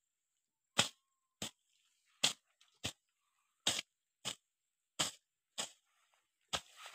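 Machete (coupe-coupe) slashing grass: a rhythmic run of short, sharp swishing cuts, about one every three-quarters of a second, nine strokes in all.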